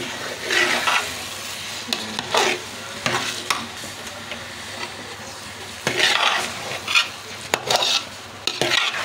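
Metal spoon stirring thick semolina halwa with dry fruits in a metal pot, scraping against the pot in irregular strokes.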